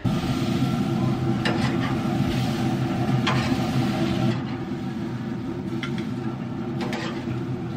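Steaks searing over flaring flames on a Traeger pellet grill: a steady, rumbling sizzle, with about five sharp clicks of a metal spatula against the grill grates.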